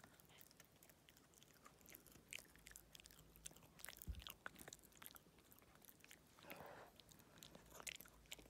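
Toy poodle puppy gnawing a hard dental scaling chew: faint, irregular crunches and clicks of its teeth on the chew.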